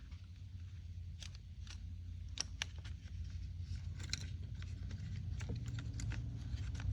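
Irregular small clicks and taps of plastic and metal handle parts being handled as the throttle trigger and spring are worked into a chainsaw's top handle. Under them runs a low steady hum that grows louder toward the end.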